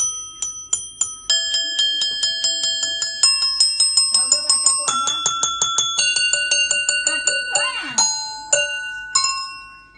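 Steel Hilti concrete chisel bits struck with a small steel drill bit, each ringing out with a clear bell-like tone. Quick repeated taps, several a second, move from one chisel to the next, so the pitch changes every second or so. Near the end come a few single strikes with short pauses between them.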